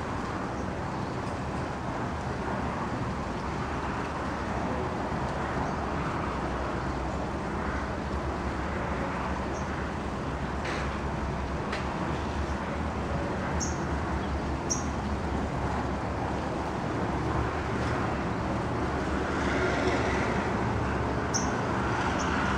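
Steady distant road-traffic rumble, with a few brief high-pitched chirps about halfway through and again near the end.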